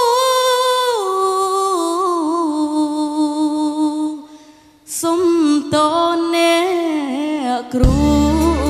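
A child singing a Khmer pop ballad almost unaccompanied, holding long notes with vibrato. The voice stops briefly about four seconds in, then carries on, and the band's accompaniment comes in loudly near the end.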